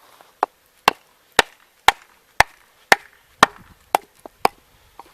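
Batoning: a baton striking the spine of a kitchen knife to drive it through a piece of firewood, in sharp knocks about two a second, around ten blows in all.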